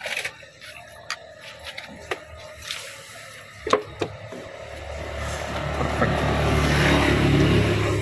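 A motor vehicle passing on the street, growing louder from about halfway through and loudest near the end, most of its sound low and heavy. A couple of sharp clicks come just before it builds.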